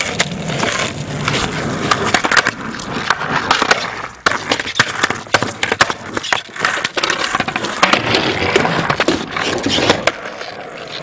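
Skateboard rolling on a concrete driveway: steady wheel roar broken by many sharp clacks of the board's tail and wheels striking the concrete.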